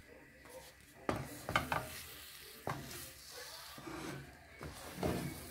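Wooden spatula stirring and turning thick urad dal kali dough in a non-stick frying pan. A handful of irregular scrapes and soft knocks against the pan sound over a faint background.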